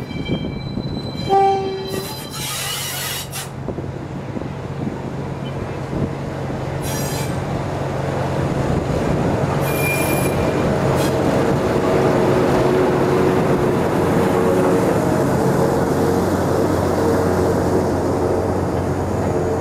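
Small Ruston diesel shunter gives a short horn toot about a second in. Its engine hum then grows louder as it approaches and runs past, hauling carriages along the track. Wind rumbles on the microphone throughout.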